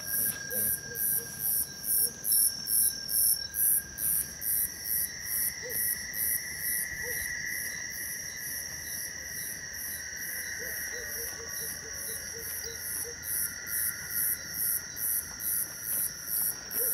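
Night insects: a cricket chirping in even, high-pitched pulses about two to three times a second, over steady insect trills.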